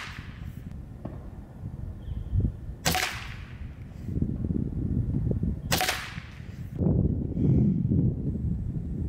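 Norica Omnia ZRS .25-calibre gas-piston break-barrel air rifle firing twice, about three seconds apart, each shot a sharp crack. A low rumble of wind on the microphone runs between the shots.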